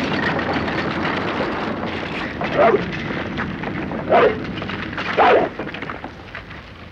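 A large dog barking three times, the barks about a second or so apart, over a continuous rushing, crackling noise that fades toward the end.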